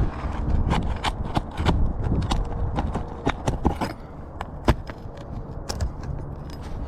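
Irregular sharp clicks and knocks from hands-on work on an asphalt shingle roof, with one louder knock a little past the middle.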